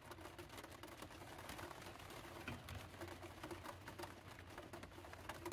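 Light, irregular pattering of rain on a van's roof, faint and steady, with a few small knocks as a gooseneck kettle and an AeroPress are handled on the counter.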